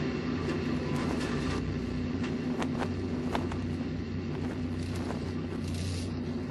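A steady, low mechanical drone with a constant pitch, like an engine running, with scattered faint clicks over it.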